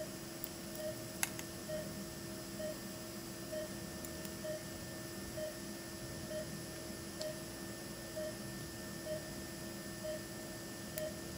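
Operating-room patient monitor beeping steadily, about once a second, in time with the patient's pulse, over a steady electrical hum. One sharp click about a second in.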